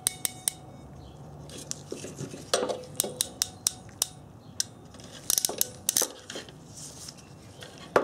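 Sharp metallic clicks of an Ancor 702010 ratcheting crimper closing on a heat-shrink butt connector. The clicks come in scattered groups: several right at the start, more about two to four seconds in, and a dense cluster about five to six seconds in as the tool is worked and let go.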